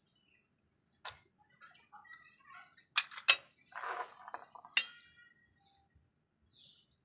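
Kitchen knife blade clinking and scraping against abalone shells on a cutting board while the abalone meat is cut loose from the shell. There are a few sharp clinks, the loudest a little after three seconds and near five seconds, with a short scrape around four seconds.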